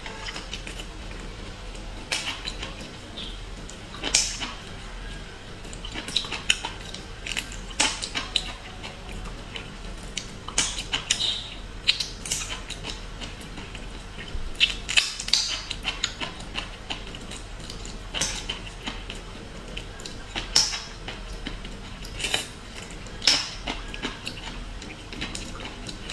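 Seafood eating sounds: irregular sharp clicks and clatters of shells and eating utensils against dishes, with short hissy bursts between them, over a low steady hum.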